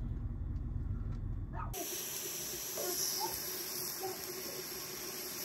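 A low steady rumble that cuts off abruptly about two seconds in, giving way to a steady hiss of sukiyaki cooking in the pan.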